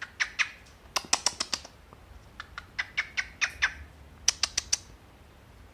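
Pet bird making runs of short, sharp clicking sounds, several clicks in quick succession, in four groups with short pauses between.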